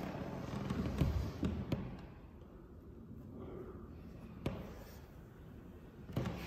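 Hands and body thudding and knocking against wooden floorboards: a cluster of dull thuds in the first two seconds, then a sharp knock about halfway through and another near the end.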